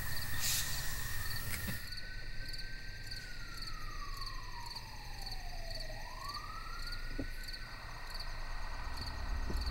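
A police siren wailing in one slow cycle: its pitch rises, holds, sinks slowly, rises again and then cuts off. Crickets chirp steadily about twice a second underneath.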